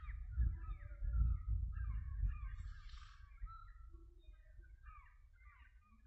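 Several birds calling, with many short chirps and a harsh call about three seconds in, over a low rumble of wind on the microphone that is strongest in the first half and then eases.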